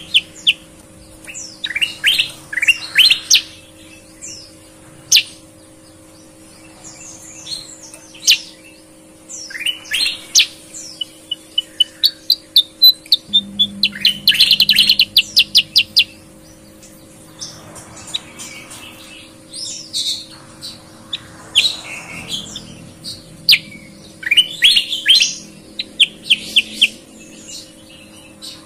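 Caged bulbuls (kutilang) singing a clear song: repeated bursts of quick whistled notes, with a fast, dense trill about halfway through. A faint steady hum sits underneath.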